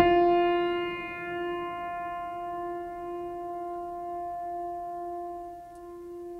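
A turret clock bell struck once, then ringing on with a long, slowly fading tone made of several steady pitches.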